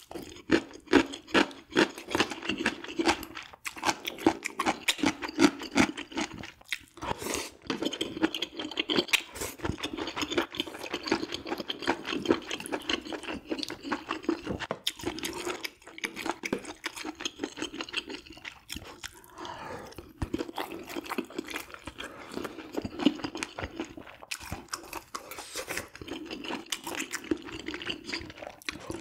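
Close-miked eating of pork-offal soup with rice and sundae (Korean blood sausage): steady, irregular chewing with many wet mouth clicks and smacks.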